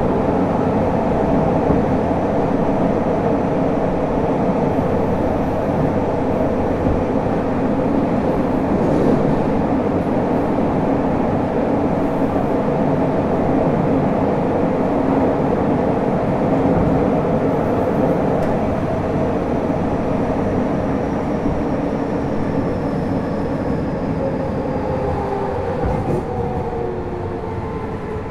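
Interior running noise of a Fukuoka City Subway Series 2000 car with Hitachi GTO-VVVF traction control: a steady rumble of wheels and motors at speed. Near the end the overall level eases and several motor and inverter tones start falling in pitch as the train begins to slow.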